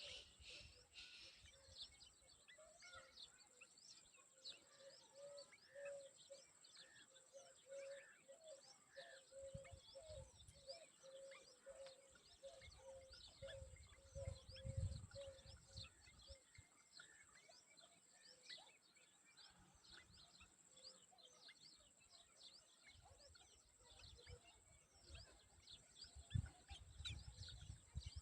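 Faint birdsong: many short, high chirps throughout, over a steady high hiss. A low note repeats about twice a second through roughly the first half, and a few low rumbles come and go.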